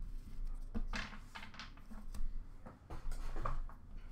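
Trading cards and packs being handled by hand: a few short rustles and light taps as cards are set down on a stack and a hand picks through packs in a plastic bin.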